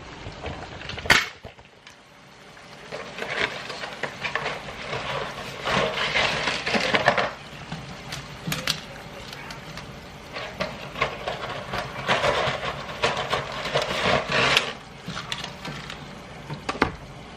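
Dry lasagna noodles clattering and crackling against each other and the pot as they are fed into boiling water, with a sharp snap about a second in and further clicks near the end.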